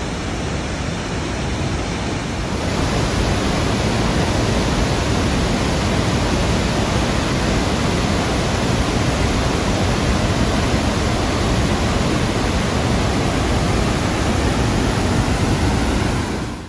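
Barron Falls in heavy flood: a loud, steady rush of falling water that grows a little louder about two and a half seconds in.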